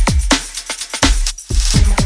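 Electronic drum-and-bass style background music: deep kick drums that drop in pitch, with fast hi-hat ticks; the beat cuts out briefly past the middle and a hissing swell rises near the end.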